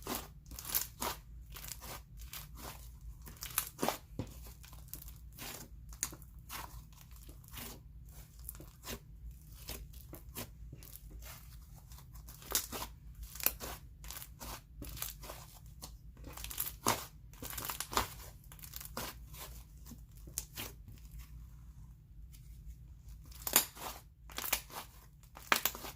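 Inflated, airy, fluffy slime being stretched and squished by hand, giving off a dense, irregular sizzly crackling and popping, with a few louder pops near the end. A steady low hum runs underneath.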